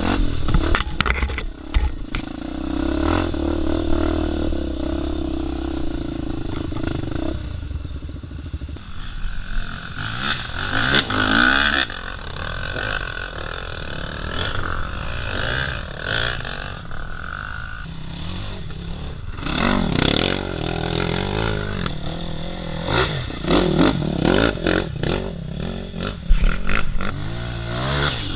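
Honda Tornado dirt bike's single-cylinder four-stroke engine, bored out to 293 cc, revving up and down under changing throttle on a rough trail. Clatter and knocks from the bike run through it.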